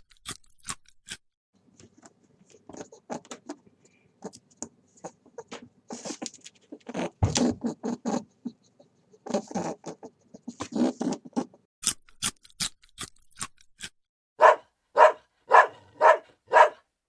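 Scratching and rustling noises, then a dog barking five times in quick, even succession near the end.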